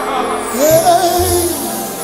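Live gospel worship music with singing and band; about half a second in a new note glides up and is held for about a second.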